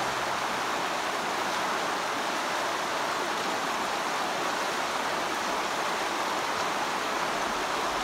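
Fast mountain stream rushing over rocks and breaking into whitewater: a steady, even rush of water.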